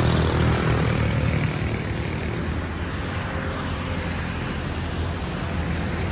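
Road traffic going past: a steady low engine rumble with tyre noise, louder for about the first second and a half, then settling to a steadier, lower level.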